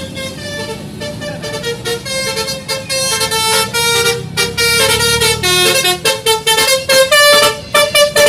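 A bus's telolet basuri multi-tone horn playing a fast melody of short, stepped notes, getting louder after about two seconds. The bus engine's low rumble runs underneath and fades out about six seconds in.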